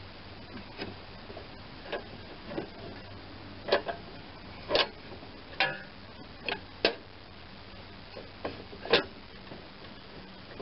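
Irregular light clicks and metallic taps from work on a steel mower deck, about a dozen in all, the sharpest about five and nine seconds in.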